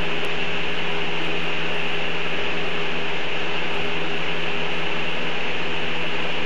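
Steady hiss with a low, even hum underneath, unchanging throughout, with no separate events.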